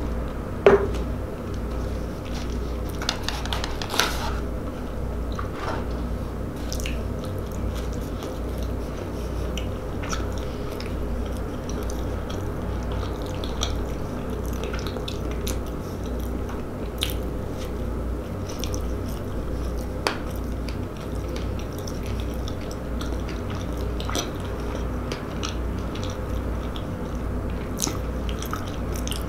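Close-miked chewing of a White Castle slider: soft wet mouth clicks scattered through, over a steady low hum. A single sharp knock about a second in is the loudest sound.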